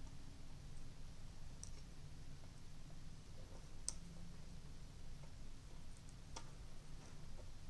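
Faint, sparse clicks of beads and terracotta pendants knocking together as beads are threaded onto a thin gear wire, three light clicks spread across a few seconds over a low background hum.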